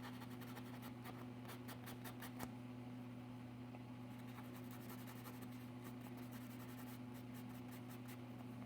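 Sanding block rubbed back and forth on an amplifier's bus bar to clean it, in two bouts of quick faint scratching strokes, a little after the start and again past the middle. A steady low electrical hum runs underneath.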